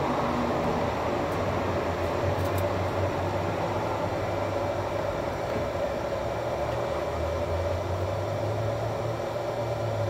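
Steady hum and blowing of a running vehicle's air conditioning heard inside the vehicle, with a couple of faint ticks early on.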